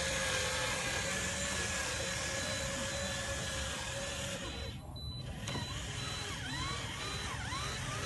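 Electric drive motor of a radio-controlled model truck whining as it drives, a steady pitch at first, then swooping up and down in pitch over the last few seconds as the speed changes.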